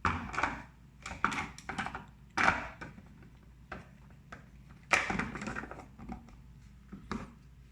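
Plastic parts of a Presto MyJo single-cup coffee maker being handled and fitted together, with the filter going in: an irregular series of short clicks and knocks, the loudest about five seconds in.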